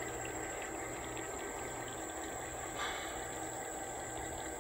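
Insects chirring steadily at a high pitch, over a low hum that comes and goes in stretches of about a second. A brief louder sound comes about three seconds in.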